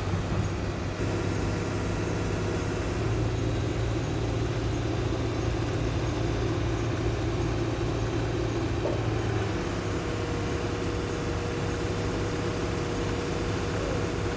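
Excavator's diesel engine running steadily: a low, even engine drone.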